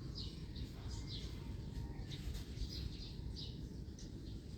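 Small birds chirping in short, falling high-pitched notes, several a second in irregular runs, over a steady low rumble.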